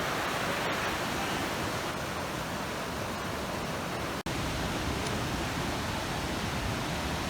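Steady rush of river water through a canyon, an even hiss with no pauses, broken by a momentary gap about four seconds in.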